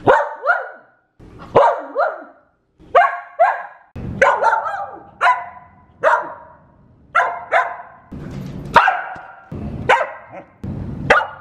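Samoyed barking repeatedly: about a dozen short, sharp barks, many coming in quick pairs, roughly a second apart.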